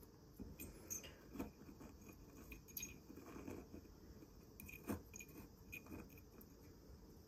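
Faint scattered clicks and light scraping as metal tweezers and fingertips work moss and soil inside a glass jar, with the loudest click about five seconds in.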